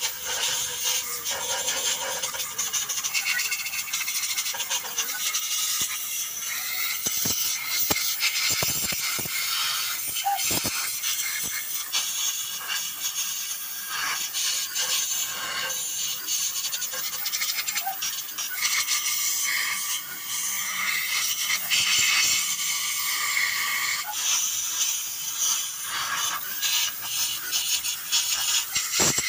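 Metal scraping, rattling and clinking of hand tools on engine parts during engine work, with many short clicks and knocks over a steady hiss.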